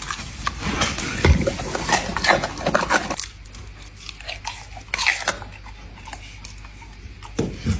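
A dog chewing and crunching at close range: a busy run of crackly snaps for about three seconds, then only scattered clicks.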